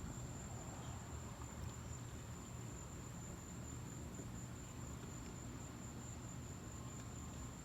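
Crickets trilling steadily as one high, thin, unbroken tone, over a faint low rumble.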